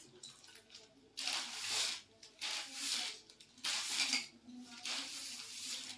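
Close-up eating sounds from two people eating quickly from plates: chewing and spoons working the food, in four or five noisy bursts of about a second each.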